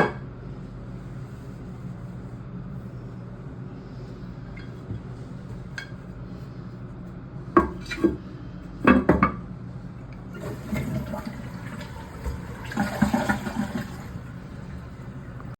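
Push-button toilet cistern with water running, broken by a few sharp knocks about halfway, then surges of rushing water as the toilet flushes.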